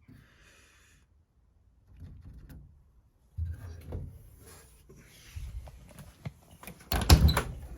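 Steel car door of a 1963 VW Beetle being handled: scattered knocks starting about three seconds in, then a louder clunk and rattle near the end.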